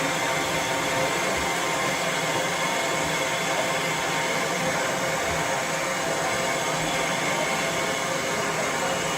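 Steady hiss of steam escaping from a GWR Castle-class steam locomotive, continuous and unchanging.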